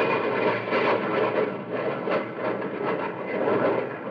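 Rumble of a jet aeroplane passing overhead, a radio sound effect: a steady, noisy roar that eases off a little near the end.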